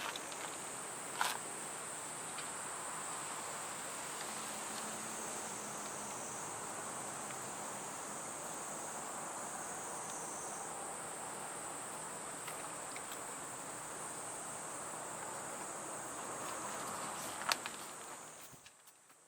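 Insects trilling in one steady high-pitched band, over a soft hiss, with a few sharp clicks. The sound drops away shortly before the end.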